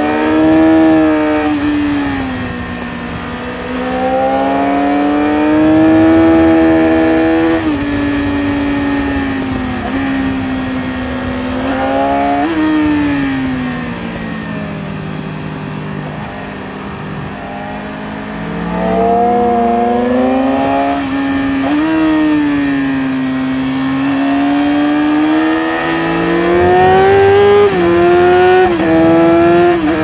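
Yamaha R6 RJ15's 599 cc inline-four engine heard raw from the rider's seat, revving hard and rolling off as the bike rides through bends. Its pitch climbs and falls with the throttle, with sudden steps at gear changes, over steady wind rush.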